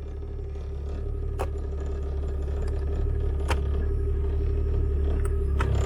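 Full Size Jeep's engine idling: a steady low rumble that slowly grows louder, with a faint steady hum and a few light clicks.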